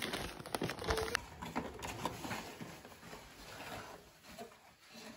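Cardboard pet carry box being handled and tipped over a hamster cage: scattered taps, knocks and rustling, busiest in the first couple of seconds.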